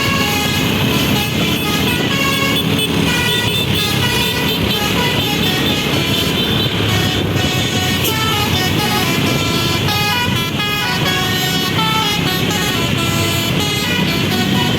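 Basuri telolet musical air horn on a bus playing a long, winding run of quick changing notes, over a low rumble.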